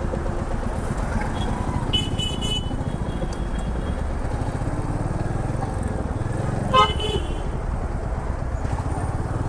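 Royal Enfield Meteor 350's single-cylinder engine running steadily in traffic. Vehicle horns honk twice, briefly about two seconds in and louder near seven seconds.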